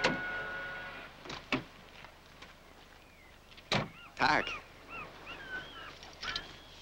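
Film score dying away at the start, then knocks and the thunk of a car door being handled, loudest about four seconds in, with short bird chirps around it.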